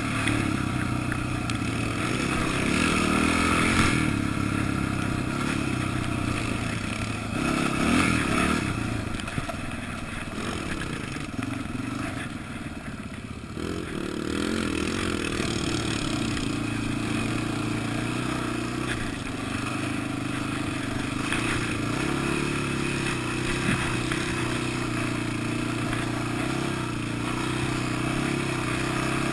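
Dirt bike engine running on a trail ride, with throttle pushed in louder spurts over the first few seconds and again about eight seconds in. The throttle eases to its quietest just before the halfway point, and the engine holds a steadier pitch after that.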